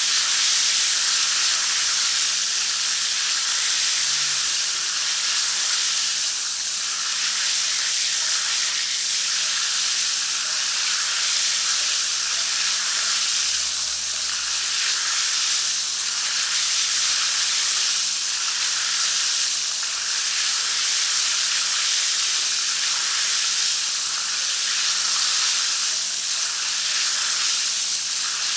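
Shower running steadily: water spraying from the shower head in an even hiss.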